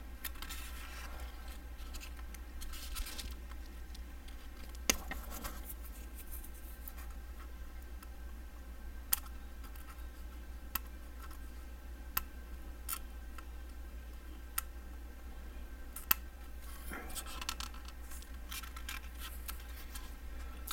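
Parafilm masking film being picked and peeled off a clear plastic model canopy: soft scratching and scraping with scattered sharp little clicks, over a steady low hum.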